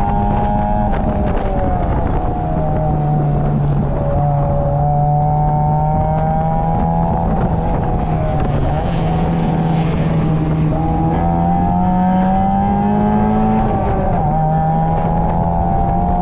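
Mazda Roadster's 1.8-litre four-cylinder engine at racing speed, heard from inside the open cockpit. Its pitch climbs slowly under throttle, falls back at gear changes and lifts a few times, and climbs again, over a steady rush of noise.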